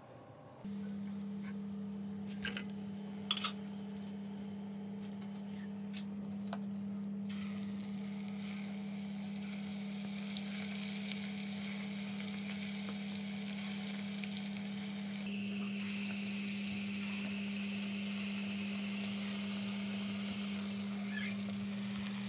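Falafel balls deep-frying in a small saucepan of hot oil: a steady sizzle of bubbling oil that grows louder about a third of the way in. A steady low hum runs underneath, with a few faint clicks early on.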